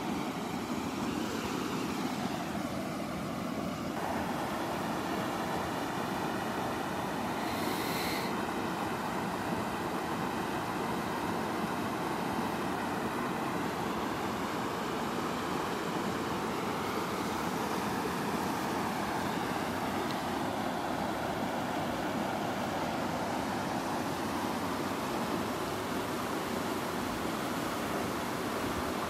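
Creek water rushing steadily over rocks and pouring through a small cascade, an even, unbroken hiss of moving water.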